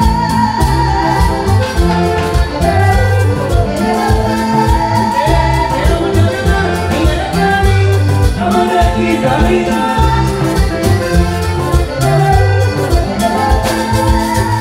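Live Latin band music led by an accordion playing melodic runs, over congas, a drum kit and a metal scraper keeping a steady beat.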